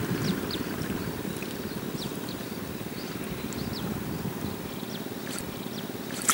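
Steady low rumble of wind across the microphone over choppy open water, with a few faint short high chirps.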